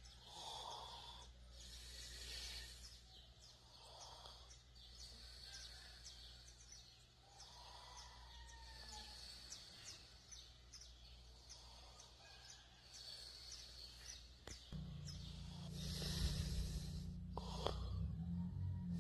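A sleeping person breathing and snoring: soft breaths every few seconds, then a louder, low snore sets in about three-quarters of the way through.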